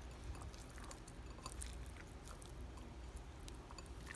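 Faint wet squishing and soft small clicks of fingers turning raw catfish pieces over in hot sauce in a bowl.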